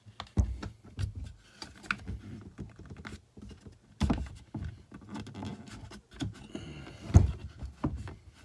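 Handling noise from a Galil Ace rifle's handguard as it is worked off the receiver: irregular clicks, knocks and light rattling of polymer and metal parts, the sharpest knocks about four and seven seconds in.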